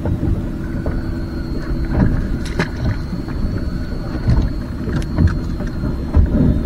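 Wind rumble on the microphone aboard a small anchored boat, with a few sharp clicks and knocks about two, two and a half and five seconds in.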